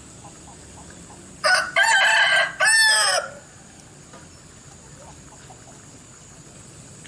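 Bangkok game rooster crowing once, an unusual-sounding crow of about two seconds that breaks into three parts.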